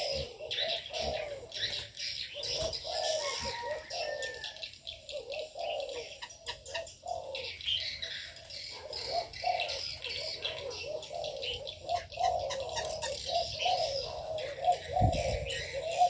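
A flock of captive doves cooing over and over, the coos overlapping, while smaller birds chirp higher up. A brief low bump sounds near the end.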